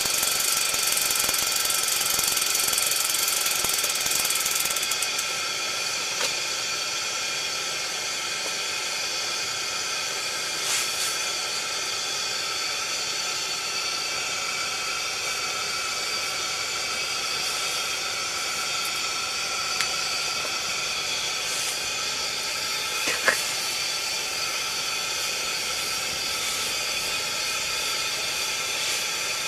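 Steady hiss of a pressure lantern burning, slightly quieter after about five seconds, with a few light clicks.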